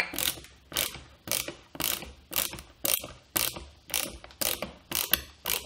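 Manual screwdriver tightening a screw into a GRIPIT plasterboard fixing, making a steady series of sharp ratcheting clicks about two a second. The turning screw is drawing the fixing's wings open behind the board.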